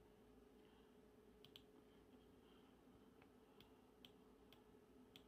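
Near silence: faint room tone with about seven quiet, scattered clicks of a computer mouse.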